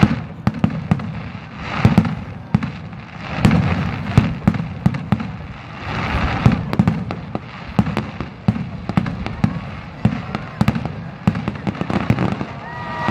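Aerial fireworks display: shells bursting one after another in sharp bangs, with dense crackling and hissing as the stars burn out. Near the end a few gliding whistle-like tones rise over the bursts.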